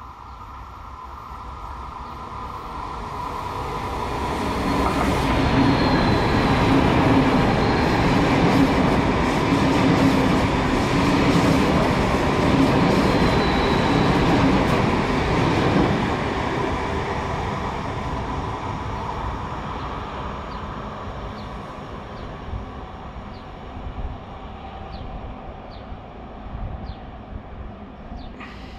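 Italo ETR.675 (Alstom Pendolino Evo) electric high-speed train passing through a station without stopping. The rush of wheel and air noise builds over about five seconds, holds loud for about ten as the train sweeps by, then fades as it recedes, with a few faint clicks from the rails near the end.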